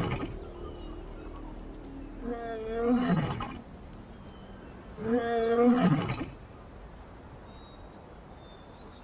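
Lion roaring at night: two long calls, one about two and a half seconds in and another about five seconds in, with the tail of a previous call at the very start. Insects chirp faintly and steadily behind them.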